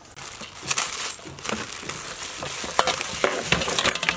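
Water splashing and sloshing in a metal basin as a whole snakehead fish is turned and rubbed by hand to wash it, with scattered sharp knocks and plastic-bag rustling.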